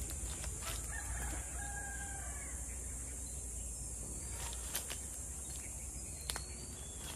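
A rooster crows once, faintly, about a second in, over a steady high-pitched insect drone. Two sharp clicks come later, the second the loudest sound.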